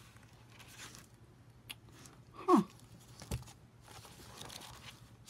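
Pages of an old hardback book being turned and riffled, with soft paper rustles. About halfway through there is a short falling vocal sound from a woman, the loudest thing here, followed a moment later by a single light tap.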